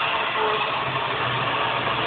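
Porsche 944 Turbo's turbocharged 2.5-litre four-cylinder running steadily with a whirring sound that comes on only once the engine is fully warm; the owner thinks the turbocharger may be the cause.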